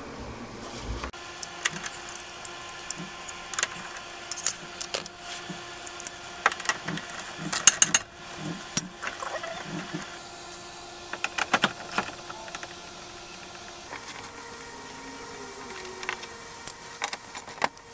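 Socket wrench ratcheting in short runs of sharp metallic clicks, with single knocks of the tool, as the bolts holding the plastic engine undercover are taken out; a faint steady hum lies underneath.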